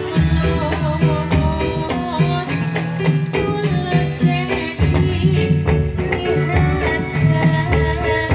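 Dolalak folk music: drum strokes in a steady beat under a melody line and bass.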